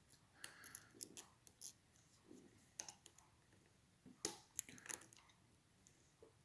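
Faint handling noise: scattered light clicks and soft knocks at irregular intervals, the sharpest about four seconds in.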